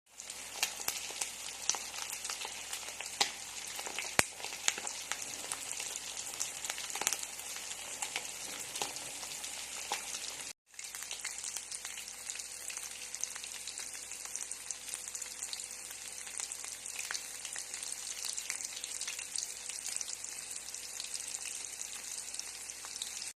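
Food frying in hot oil: a steady sizzle with scattered sharp pops and crackles, the loudest pop about four seconds in. The sound drops out for a moment about halfway through, then the sizzle resumes.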